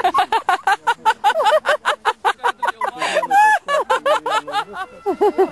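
Hearty human laughter in rapid, evenly repeated ha-ha bursts, about eight a second, loud, with a few longer drawn-out voiced notes about three seconds in.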